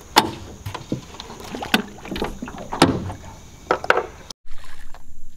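Irregular knocks and thumps on the deck of a bass boat as a man moves about and handles gear, about a dozen over four seconds. Near the end they stop, and a steady high insect drone from the swamp takes over.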